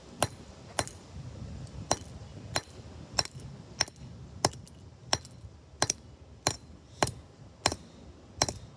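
Claw hammer striking the bare circuit board of a PNY Turbo Attache USB flash drive against a concrete slab: about a dozen sharp strikes, evenly paced at a little under two a second.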